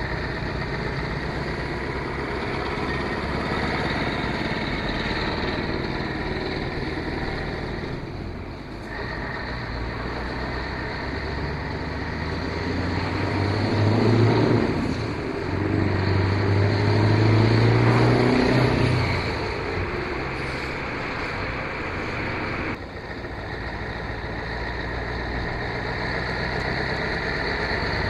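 Vehicle engine running with road noise while driving. Through the middle it grows louder, the engine note rising and falling, and the sound changes abruptly twice.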